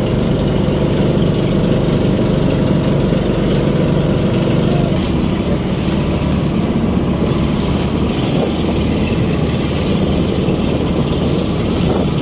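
Outrigger boat's engine running steadily under way, heard from on board, its note shifting slightly about five seconds in.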